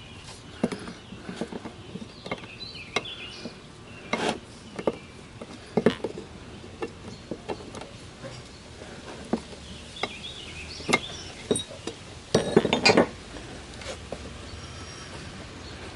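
Irregular metallic clinks and knocks of a socket ratchet with an extension and loose steel parts being handled on a cast-iron jointer base, with a quick cluster of clatter about three-quarters of the way through.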